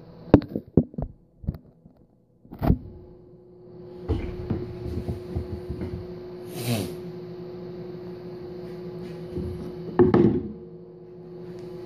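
Knocks and bumps of handling in the first second and a half, then a click, after which an old Montgomery Ward Powercraft stick welder's transformer hums steadily. Over the hum there is scattered clatter, a brief hiss about two-thirds of the way in, and a loud rustle of a gloved hand near the end.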